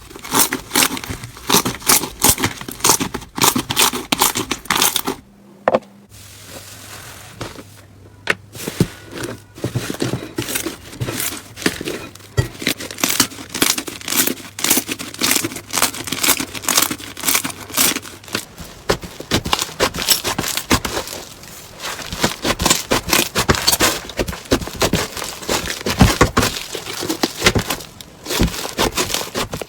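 Slime being squeezed and pressed by hand, giving dense crackling and popping clicks, quieter for a stretch in the middle.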